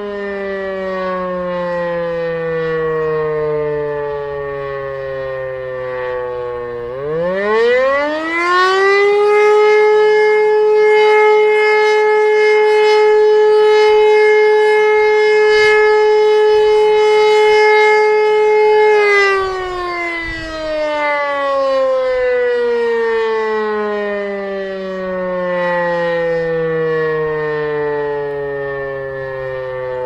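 Overhauled E57 electromechanical siren sounding a test alarm: it winds down in pitch, then spins up a few seconds later to a steady tone of about 427 Hz held for about ten seconds, then winds down slowly. Near the end it begins spinning up again.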